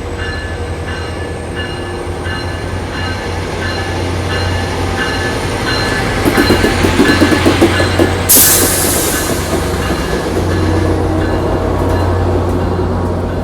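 Caltrain diesel commuter train pulling out of the station: the locomotive engine hums steadily while a bell rings over and over, about twice a second. A louder rhythmic clatter builds past the middle, and a sudden sharp hiss of air bursts out about eight seconds in and fades.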